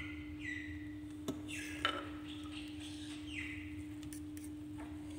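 A metal utensil stirring beaten egg mixture in a glass baking dish, making a few short scrapes and light clinks against the glass.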